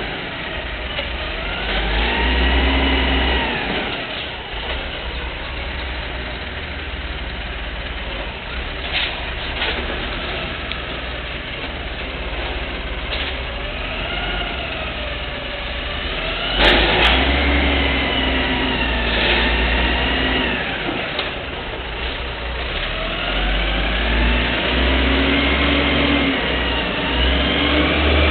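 Automated side-loader recycling truck's engine running, its revs surging up and falling back several times as the truck works and moves off. A single sharp bang sounds about two-thirds of the way through.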